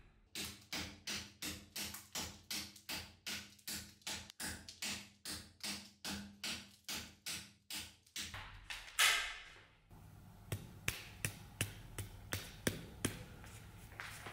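A heavy knife chopping repeatedly into a wooden stick clamped in a vise, about three blows a second for some eight seconds, a test that its riveted horn handle holds fast. Near the end a single louder noise, then lighter, irregular taps.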